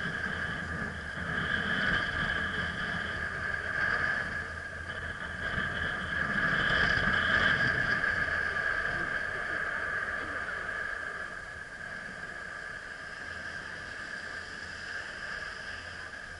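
Chairlift running: a steady mechanical whine from the haul rope passing over the lift's sheave wheels, swelling and easing and fading gradually over the second half, over a low rumble of wind on the microphone.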